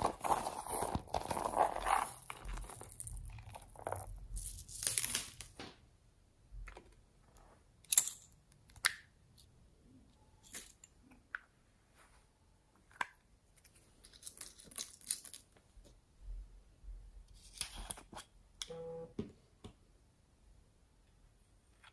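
A small zippered faux-leather pouch is handled and opened with a scratchy rustling for the first few seconds. Then come scattered sharp clicks and taps from small plastic pots of slime add-ins being opened and handled.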